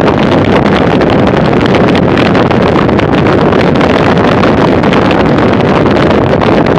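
Loud, steady wind rush on the microphone of an action camera mounted on a racing bicycle travelling at about 45 km/h.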